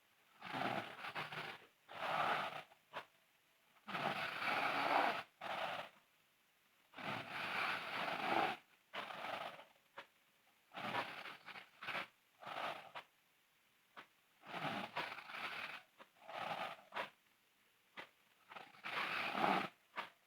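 A sleeping person snoring loudly: a rasping snore on each breath, coming back about every three seconds, usually a longer snore followed by a shorter one.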